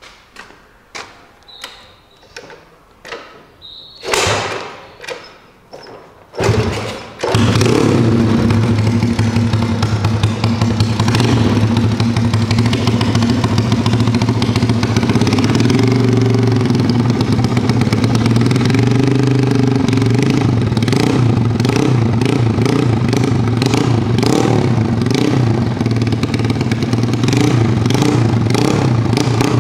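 Single-cylinder Daytona 140cc engine in an underbone motorcycle, breathing through a GL Racing aftermarket exhaust: a string of thumps as it is turned over, then it catches about seven seconds in and runs loud and steady. In the second half the throttle is blipped again and again, the engine note rising and falling.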